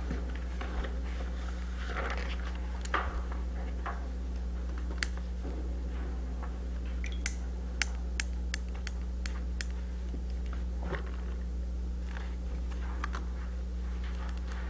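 Meeting-room tone: a steady low hum with faint rustling and shuffling, and a quick run of about seven sharp clicks, some three a second, a little past the middle.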